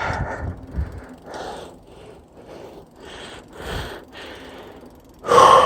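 Heavy breathing from exertion: short, noisy breaths about once a second, with a louder, voiced exhale near the end.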